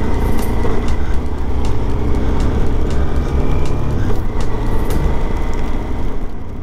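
Suzuki V-Strom 650's V-twin engine running under way, buried in heavy wind rumble on the microphone, with scattered sharp ticks; the sound begins to fade near the end.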